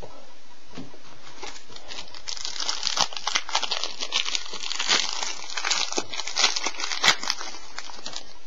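Plastic-foil trading card pack wrapper being crinkled and torn open, a dense crackly rustle with sharp snaps that starts about two seconds in.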